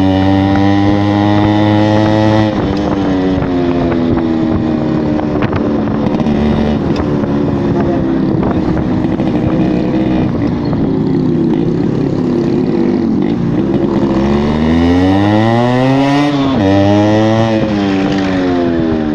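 Yamaha RX 100 motorcycle's single-cylinder two-stroke engine running, steady at first, then dropping in pitch about two and a half seconds in. It is revved up twice near the end.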